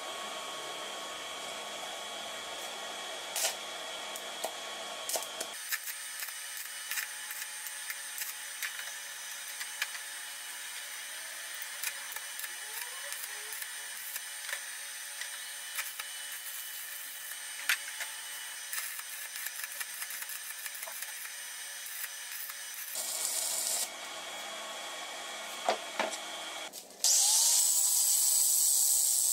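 From about five seconds in, a stick-welding arc crackles and sputters steadily with many small pops. Near the end an angle grinder starts up and grinds steel, throwing sparks; this is the loudest sound.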